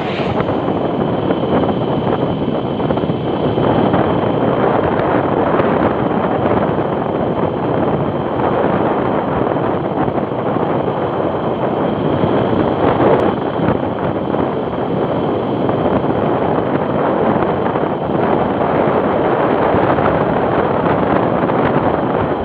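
Steady rush of wind over the microphone of a camera travelling along a road, with vehicle and road noise underneath.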